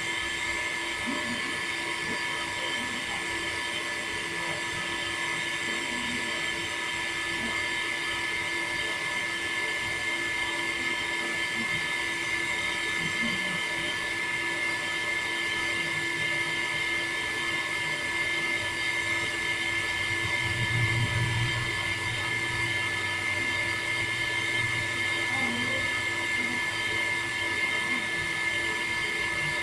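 Electric water pump motor running steadily with a constant high whine. A low hum swells briefly about two-thirds of the way through.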